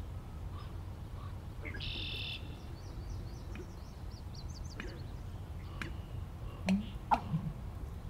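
Male American bittern making three short, loud gulping clicks in quick succession from about six and a half seconds in, as it fills its esophagus with air ahead of its pump-er-lunk call. Before them, small birds chirp faintly, with a brief buzz about two seconds in.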